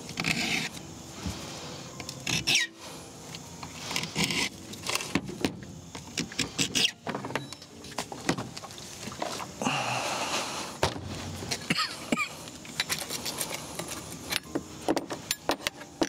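Metal tool-handling noises on a Stihl chainsaw. Near the start come a few rasping strokes of a flat file across the chain. Later a scrench loosens the bar nuts, with frequent sharp metallic clinks and rattles of the wrench, bar and chain, thickest in the last few seconds.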